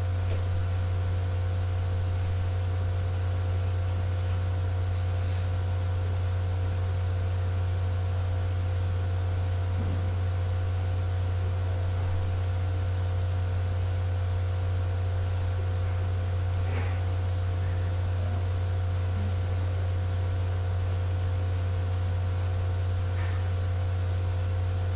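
Steady low electrical hum with several fainter steady higher tones over it, and a few faint knocks now and then.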